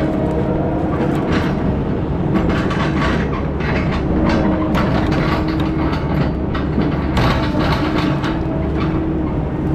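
Heavy equipment running steadily, its engine holding an even hum, with irregular metallic rattling and clanking over it.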